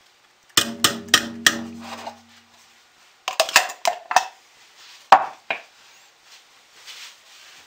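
Stick blender's metal head knocked four times in quick succession against the rim of a stainless steel pot, the pot ringing briefly after the knocks, to shake off soap batter. Several lighter clicks and knocks follow.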